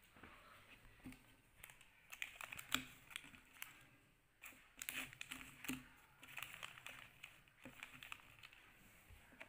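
Foil-plastic eraser wrappers crinkling and small eraser packs tapping down on a wooden tabletop as they are set out in rows: faint, in a few bursts of quick crackles and clicks.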